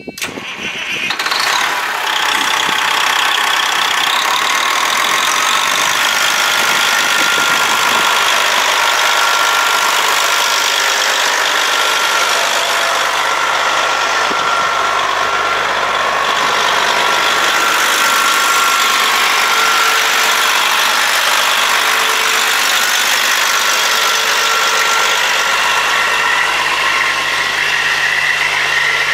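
Diesel engine of a 1996 Freightliner FLD120 semi truck idling steadily, with a thin, steady high whine over the engine noise.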